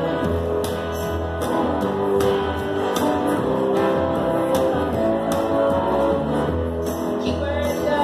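Live acoustic band playing: a guitar strummed in a steady rhythm over a low bass line, with singing.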